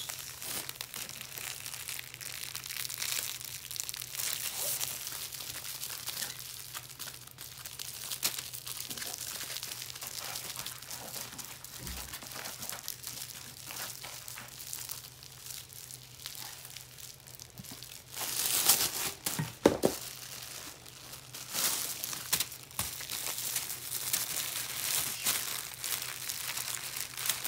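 Clear nylon bag and paper crinkling and rustling as they are handled, in uneven bursts, loudest about two-thirds of the way through, over a faint steady low hum.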